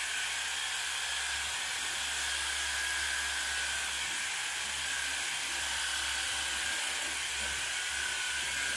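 Pressure washer spraying water onto a van's bonnet to rinse off snow foam: a steady, even hiss with a low hum underneath.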